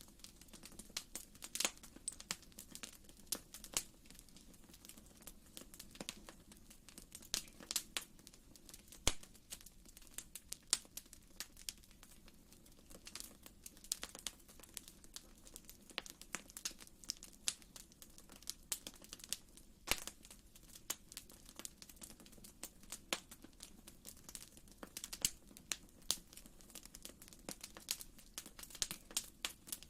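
Wood fire crackling in a fireplace: irregular sharp pops and snaps, some louder than others, over a faint steady low hiss.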